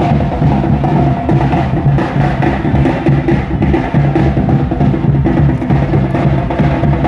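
Percussion music: a steady, busy drum beat over sustained pitched tones, as played for a traditional Minangkabau wedding procession.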